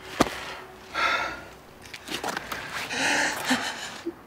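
A young man gasping and sobbing in ragged breaths, with a sharp click right at the start.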